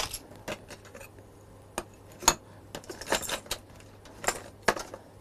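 Small hard craft pieces, beads and fish-shaped charms, clicking and clinking against each other as they are rummaged through and picked out of a storage box. The clicks come one by one at irregular intervals, loudest at about two seconds in and again near the end.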